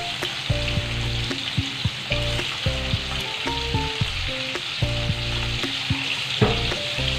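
Prawns frying in hot mustard oil in a wok-shaped kadhai: a steady sizzle with scattered small pops of spattering oil. Background music plays underneath.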